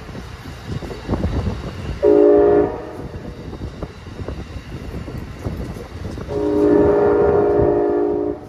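Multi-chime train horn sounding twice: a short blast about two seconds in and a longer one of about two seconds near the end, over the rumble and clatter of a passing train.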